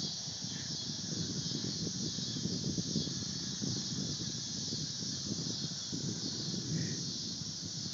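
Steady high-pitched insect chorus with a fine pulsing buzz, over the low, gusty rumble of wind buffeting the phone's microphone.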